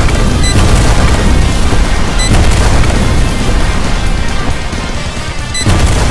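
Loud edited soundtrack: background music with a heavy, bass-laden sound effect laid over it. The effect dips about five and a half seconds in, then surges again.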